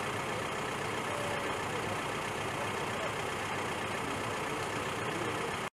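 A parked police van's engine idling steadily.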